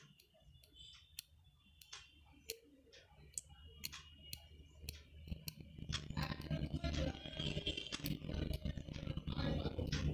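Small scissors snipping nose hair inside a nostril: a string of light metallic clicks, about two a second. About halfway a louder steady low hum comes in underneath.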